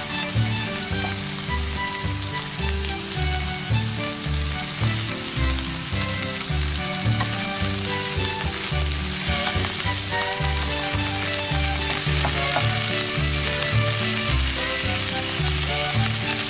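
Diced onions and shiitake mushrooms sizzling steadily as they sauté in a nonstick frying pan, pushed around with a slotted spatula, over background music.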